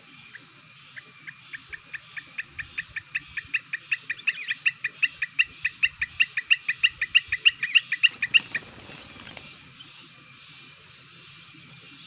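Sooty-headed bulbul (kutilang) calling: a long run of sharp repeated notes that speeds up to about five a second and grows louder, then stops abruptly, followed by a brief rustle.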